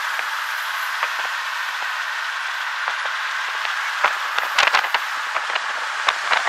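Steady rushing wind and road noise at the open window of a moving car, with a few scattered clicks about four to five seconds in and again near the end.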